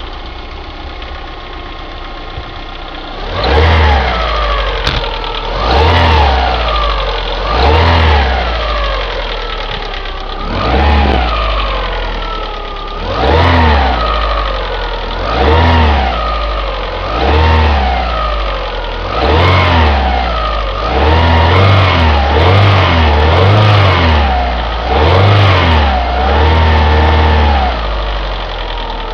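Opel Astra G's X16XEL 1.6-litre 16-valve four-cylinder petrol engine idling cold, then blipped up to low revs about a dozen times, every two seconds or so and closer together near the end. The owner hears a ticking from the right side of the engine that mechanics take for possible valve lifter wear, and a noise on the left side that he puts down to a worn cambelt tensioner roller.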